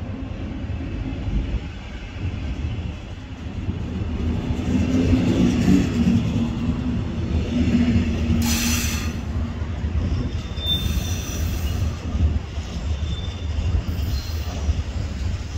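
A train running past on the track with a steady rumble that swells in the middle. There is a brief hiss about two-thirds of the way in, and a couple of short, high wheel squeals near the end.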